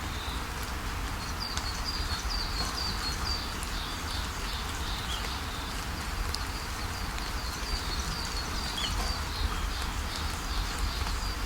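Steady rush of a waterfall, with small birds chirping over it in quick runs of short, high, repeated notes.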